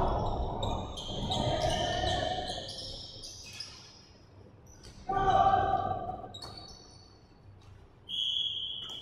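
Basketball game on a hardwood gym floor, ringing around a large hall: sneakers squeaking, the ball bouncing and voices calling out. About eight seconds in, a referee's whistle gives one long steady blast.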